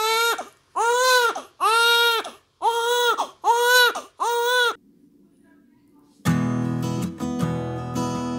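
Newborn baby crying in about five short wails in a row, each rising and falling in pitch. After a brief near-silent pause, acoustic guitar strumming music begins about six seconds in.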